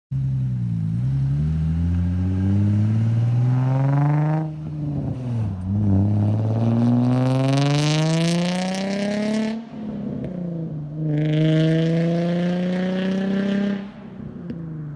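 Nissan 350Z's VQ35DE V6 through non-resonated test pipes, a Y-pipe and a single-exit exhaust, pulling hard under acceleration: the pitch climbs steadily for several seconds and drops sharply three times, as at gear changes, with a raspy edge near the top of each pull.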